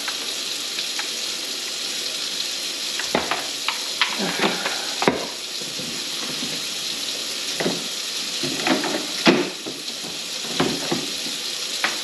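Water running steadily into a kitchen sink and down its drain, a continuous hiss. Scattered knocks and clatters sound over it from a few seconds in until near the end.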